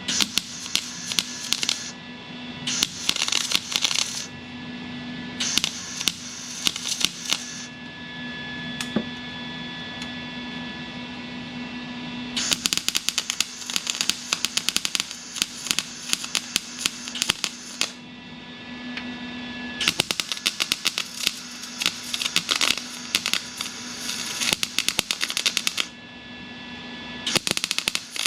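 Wire-feed welder arc crackling as a steel patch is tacked and stitch-welded into a car body panel: several short bursts, then two longer runs of about five to six seconds each, over a steady low hum.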